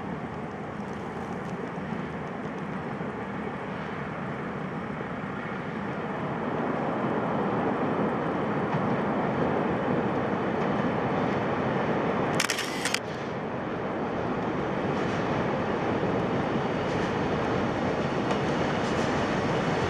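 DD51 diesel-hydraulic locomotives hauling a freight train, their engines working steadily and the rumble growing louder about six seconds in. A film camera's shutter clicks sharply about twelve seconds in.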